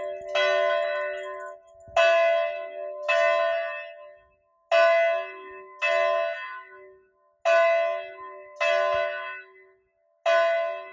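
A single church bell tolling in pairs of strokes about a second apart, the first of each pair the louder, each stroke ringing and dying away; a new pair comes about every two and a half seconds.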